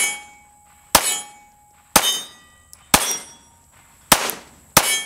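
Springfield Hellcat Pro 9mm pistol firing five single shots, about one a second, the last two closer together. Each shot has a brief ringing tail.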